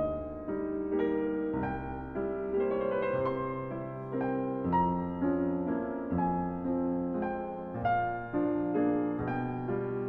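Background music: a gentle piano melody over sustained bass notes.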